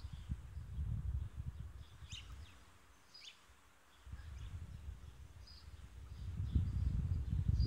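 Wind buffeting the microphone in low gusts, dying down around three seconds in and building again near the end, with small birds chirping briefly here and there.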